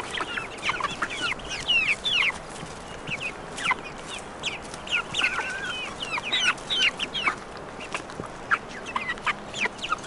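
Chickens clucking and chirping, with many short high calls scattered throughout.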